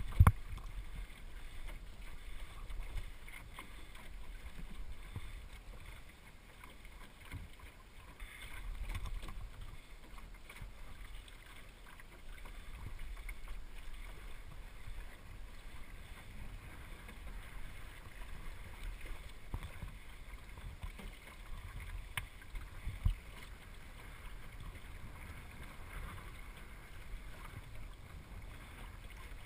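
El Toro sailing dinghy moving through the water under sail: low steady wind rumble on the microphone with water washing along the hull, and a few scattered knocks.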